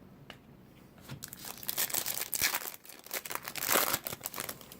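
Baseball card pack wrapper being torn open and crinkled by hand: crackly rustling that starts about a second in and peaks twice, loudest near the end.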